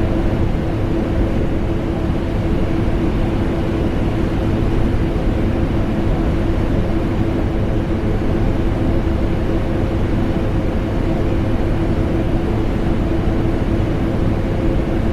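Vacuum cleaner motor running continuously with air conditioner noise: a steady rushing drone with a constant hum tone, unchanging throughout.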